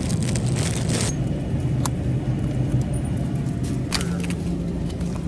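Supermarket background noise: a steady low rumble from the store, with plastic packaging crinkling in the first second and a few more light rustles and clicks later on.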